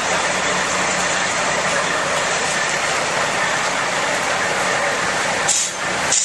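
Heavy truck engines idling nearby, a steady drone with a low hum, with two short hisses near the end.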